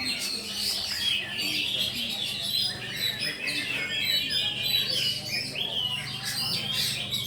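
Oriental magpie-robins singing together, a dense run of overlapping rapid whistles and chirps from several birds at once, over a steady low hum.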